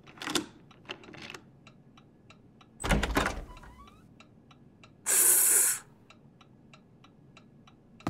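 Key turning in a door lock: a few clicks, then a heavy clunk of the bolt about three seconds in, and a short hissing swish about five seconds in as the door swings open. A faint, even ticking of about three ticks a second runs underneath.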